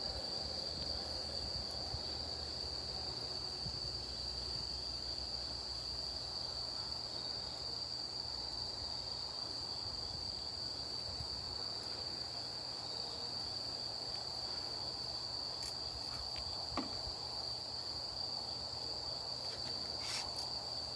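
Insects trilling steadily on one unbroken high note, over the low sound of a campfire, with a few sharp crackles near the end.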